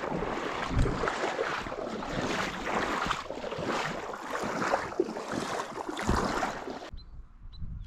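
Brook water rushing and splashing through an old dam chute, a steady noisy wash. About seven seconds in it cuts off abruptly to a quieter low rumble with a few faint high chirps.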